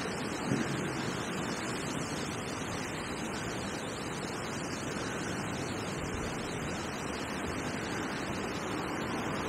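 Steady, even rush of strong wind and the river's flowing water around an angler standing in the current.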